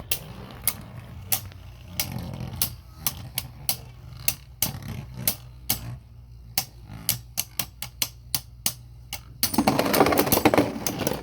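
Beyblade Burst Turbo tops Archer Hercules and Emperor Fornius clashing as they spin: a string of sharp plastic clicks at each hit, coming faster as the battle goes on. Near the end, a loud dense clatter as one top bursts apart and its pieces rattle about: a burst finish.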